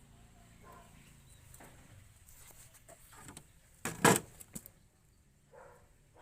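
A single sharp, loud clank about four seconds in, with a few faint clicks around it over a low background hum.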